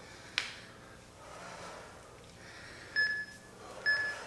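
Heavy breathing during a HIIT exercise, with one sharp tap about half a second in. Near the end come two short electronic interval-timer beeps a second apart, counting down the last seconds of the work interval.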